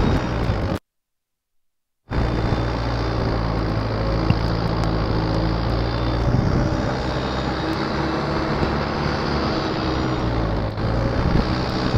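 Modified turbo-diesel engine of a Mahindra Arjun 605 4x4 tractor running steadily under load while pulling a disc harrow. The sound cuts out for about a second near the start, then the engine runs on at an even pitch.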